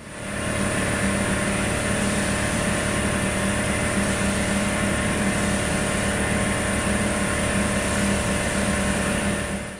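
Paint-spraying equipment running steadily while 2-pack paint goes on: a motor hum under a rush of air. It builds up about half a second in and drops away at the very end.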